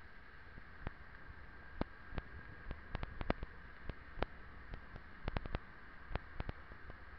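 Handling noise on a moving action camera: irregular sharp clicks and knocks, several close together around the middle, over a low rumble and a faint steady high hum.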